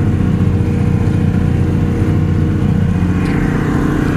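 Tractor engine running steadily under load, pulling a field cultivator through the soil, heard from inside the cab.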